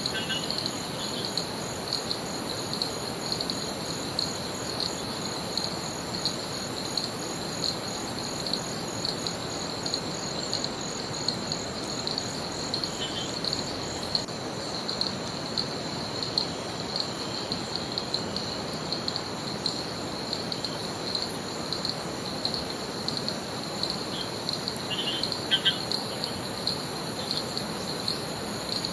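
Rainforest insect chorus: a steady, fast-pulsing high buzz that never lets up, over an even background hiss. A few short bird chirps come through about a dozen seconds in and again near the end.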